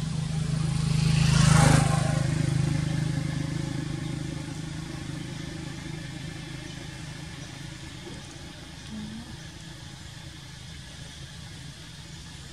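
A motor vehicle passing by, its engine hum and rush rising to a peak about a second and a half in, then fading away slowly.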